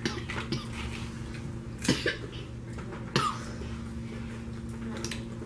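About five short, sharp mouth and throat sounds, a second or more apart, from children eating caramel-coated popcorn, over a steady low hum.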